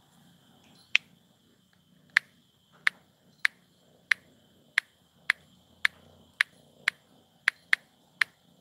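A regular series of sharp clicks, about one every half second and coming slightly faster near the end, over a faint steady high whine.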